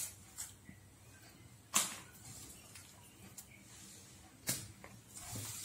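Hands handling ingredients in a glass bowl: faint rustling with two sharp light knocks of dishware, the second about three seconds after the first.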